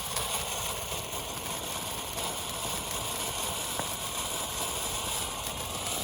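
A ground fountain firework burning with a steady spraying hiss.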